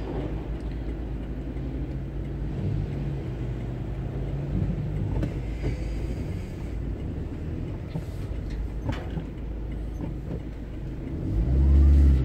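Road traffic: a steady low engine hum from vehicles in slow-moving traffic. Near the end a louder low engine rumble swells up.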